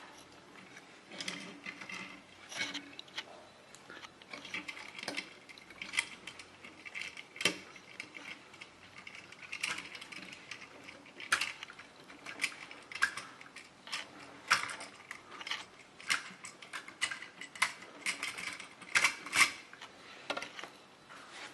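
Plastic toy vehicles being handled and moved, making irregular clicks and short clattering rattles, a few louder clacks near the end.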